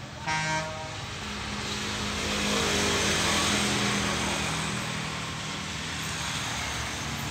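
Electric armature growler humming steadily with a rotary hammer's armature laid on it, a test for shorted windings. A short buzzing tone sounds about a third of a second in, and a broad rushing noise swells in the middle and eases off.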